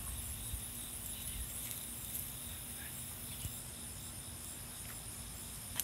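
Quiet outdoor ambience: faint, steady high-pitched insect chirring under a low steady hum, with a few faint ticks.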